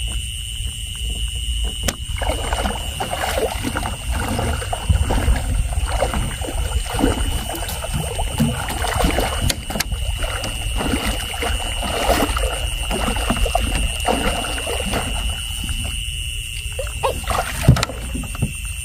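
Water splashing and dripping, with irregular knocks and rustles, as a fishing net is handled over the side of a small boat. A steady high-pitched whine runs underneath.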